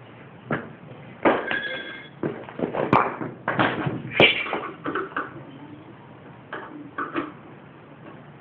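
A string of irregular knocks and clanks on metal from working on an old lawn mower, one of them about a second and a half in ringing briefly.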